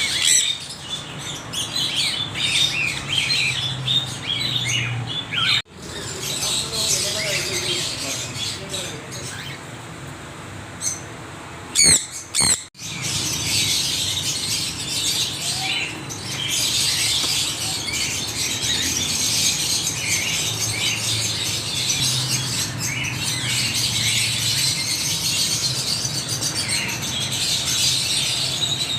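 A flock of parrots chattering and squawking in a dense, continuous stream of high calls, broken twice by abrupt cuts, with a couple of loud sharp calls just before the second.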